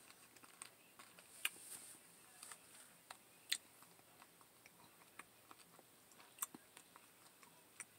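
Faint chewing of soft lentil chili: scattered small mouth clicks and smacks, the loudest about one and a half and three and a half seconds in.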